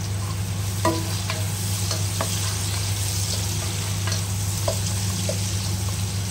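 Sliced onions and whole spices sizzling in hot oil in a nonstick pot while a spatula stirs them, with a few short scraping taps of the spatula against the pan. A steady low hum runs underneath.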